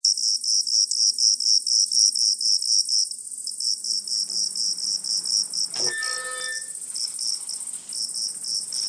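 Insects chirping in an even rhythm, about four high-pitched pulses a second, over a steady high buzz. About six seconds in there is a single struck ringing sound, bell-like, that dies away within a second.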